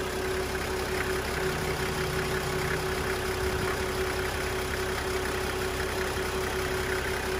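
Toyota 1HZ 4.2-litre inline-six diesel idling steadily. This is an engine in sound condition, with little blow-by and even compression.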